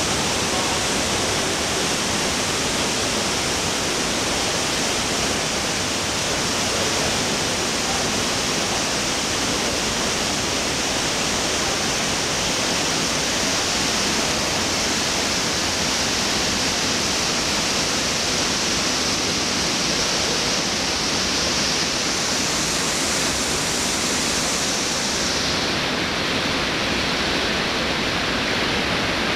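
The Bussento river rushing through a narrow rocky gorge, a loud steady rush of white water over boulders.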